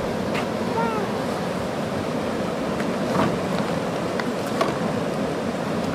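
Water rushing steadily through the sluice gates of a canal lock as the chamber fills to raise the boat. A short pitched whistle-like note sounds about a second in.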